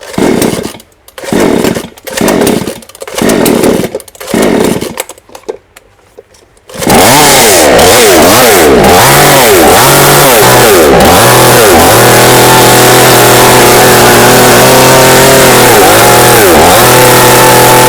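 62 cc two-stroke petrol chainsaw being pull-started: about five short bursts as the cord is pulled, then the engine catches about seven seconds in and runs loud. It is revved up and down, then held at a steady high speed.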